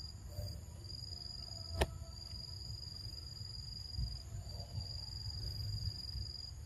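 Insects trilling steadily as a high, even whine that breaks off briefly now and then, over a low rumble. One sharp click about two seconds in.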